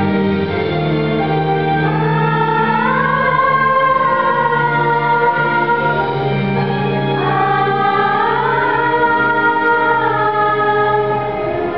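Female vocal ensemble singing held notes in harmony over an instrumental accompaniment with low sustained notes; the upper voices rise in pitch twice.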